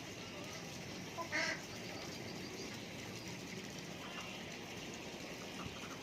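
A domestic duck quacking loudly once, about a second and a half in, over faint scattered bird calls.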